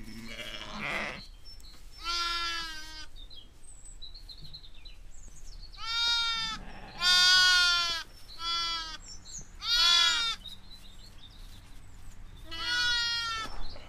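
Sheep and newborn lambs bleating: about six separate calls a second or more apart, the loudest around the middle.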